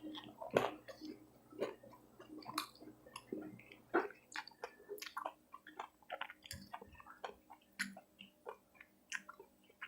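A person chewing food close to the microphone: faint, irregular wet clicks and smacks of the mouth, a few each second.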